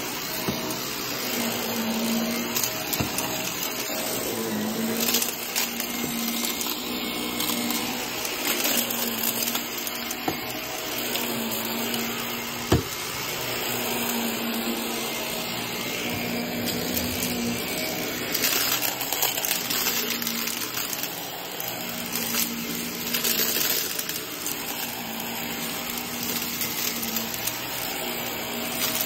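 Upright vacuum cleaner running on carpet, its hum rising and dropping every second or two as it is pushed back and forth. A single sharp click about thirteen seconds in.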